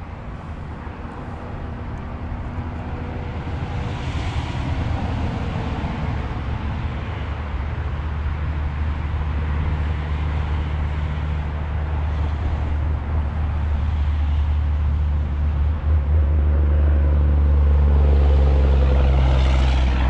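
A truck passing over the road above, its engine and tyre rumble building steadily and loudest near the end.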